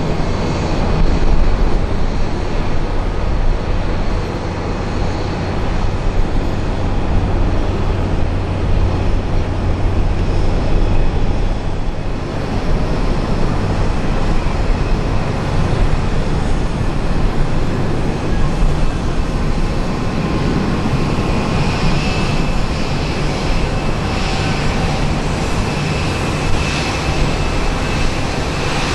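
Jet airliner engines running, a loud steady rumble with no break. A thin high whine joins about two-thirds of the way through.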